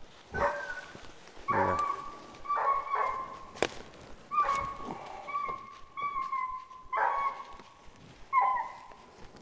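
Boykin Spaniel puppy whining and yelping over and over, with high-pitched cries roughly once a second. A single sharp click comes a little before the middle.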